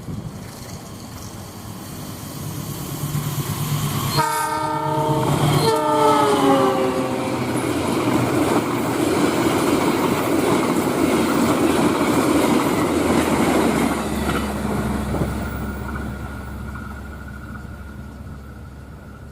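A passenger train passing at high speed: its horn sounds steadily, then a second blast drops in pitch as the locomotive goes by, followed by several seconds of the carriages rushing past with wheel clatter, fading away near the end.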